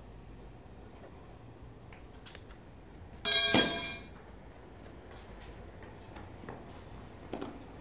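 A door being opened: one short, loud squeak about three seconds in, then a few faint knocks and clicks over a low steady room hum.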